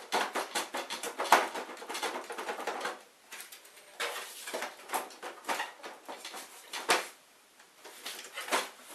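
Plastic housing of an inkjet printer being worked apart by hand: irregular clicking, rattling and scraping of plastic parts, with brief pauses and a sharp click about seven seconds in.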